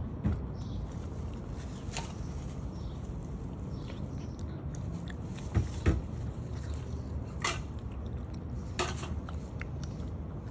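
A stray cat eating close to the microphone: a few scattered soft clicks and crunches, the loudest a pair of low knocks about halfway through, over a steady low outdoor rumble.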